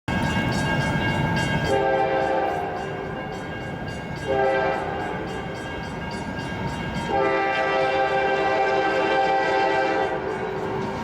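Freight locomotive air horn on a CSX train led by rebuilt CM44AC 7210, sounding a blast, a shorter blast, then a long blast of about three seconds, over the steady rumble of the passing diesel locomotives.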